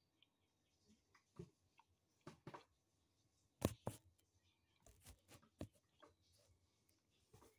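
Quiet sounds of someone eating a snack: scattered small clicks and rustles of chewing and handling, with one louder sharp click about three and a half seconds in.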